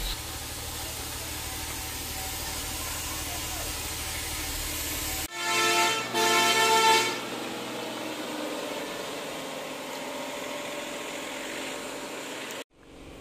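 Heavy lorry's engine running steadily, then two horn blasts about five seconds in, the first short and the second longer and loudest. The engine drone carries on more quietly afterwards and cuts off abruptly near the end.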